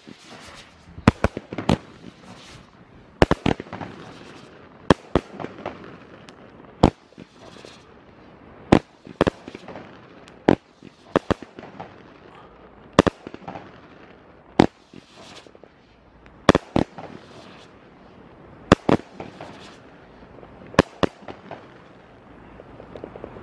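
Weco 27 Titans firework cake firing: shot after shot of sharp bangs every second or two, some in quick pairs, as its shells launch and burst overhead.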